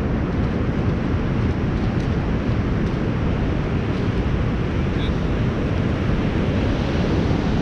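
Steady wind buffeting the camera microphone, a low rumbling rush, with ocean surf washing on the beach beneath it.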